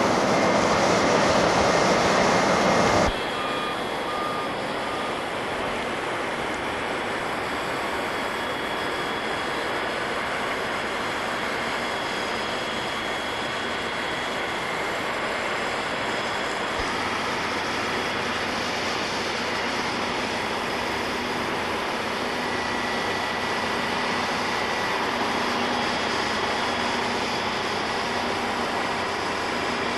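A louder steady rumble cuts off suddenly about three seconds in. It gives way to a heavy spray truck's engine running steadily while it sprays dust-control sealant onto a coal pile, with three short beeps soon after the cut.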